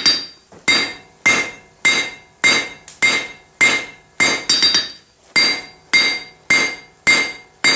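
Hand hammer striking hot steel on an anvil, drawing out a forged railroad-spike blade. Steady blows come about one every half second, each with a bright metallic ring.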